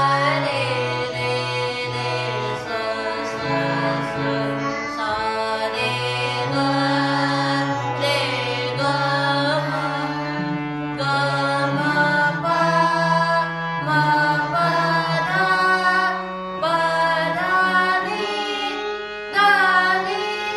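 Harmonium playing held notes that change every second or two, with children singing along over it in Indian vocal practice (riyaz).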